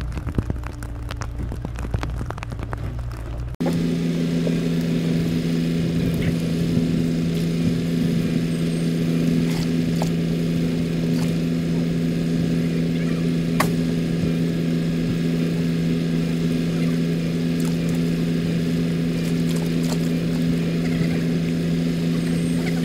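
Diesel engines of tracked excavators running steadily at constant speed, a deep even drone with an occasional faint click or knock. A few seconds in the sound changes abruptly from a lower, rougher rumble to this louder, steady drone.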